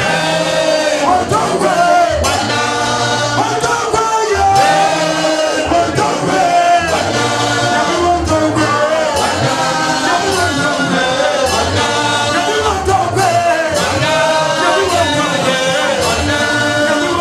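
Several men singing a worship song together into microphones, over a bass line that pulses at an even beat.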